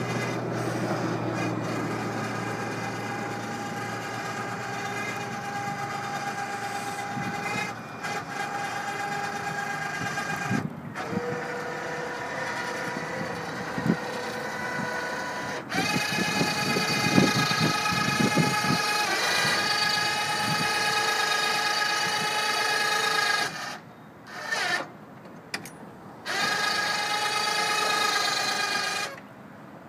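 A 12-volt electric winch motor whining in several runs, with brief pauses and a shift in pitch between runs; it stops twice near the end.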